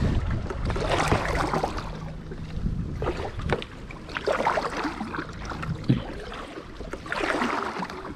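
Wind buffeting the microphone over water sloshing against plastic kayak hulls, with a few sharp knocks of gear on a hull. A kayak paddle stroke splashes near the end.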